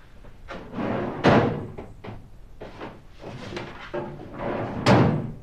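A bedside cabinet being opened and shut with knocks and sliding, and a document folder handled; the sharpest knocks come about a second in and near the end.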